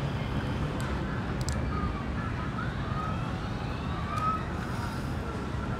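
Steady low rumble of distant road traffic, with faint short whistling glides over it.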